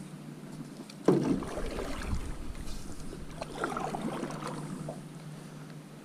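Canoe paddling on a river: a sudden loud knock about a second in as the paddle stroke starts, then splashing and rubbing of a second stroke around three and a half seconds in, the paddler's arm brushing close to the microphone.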